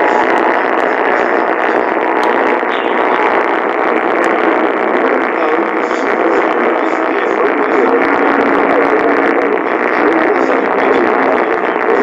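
AM radio tuned to 1430 kHz giving out steady static and hiss, cut off above a few thousand hertz, with no clear program audio coming through.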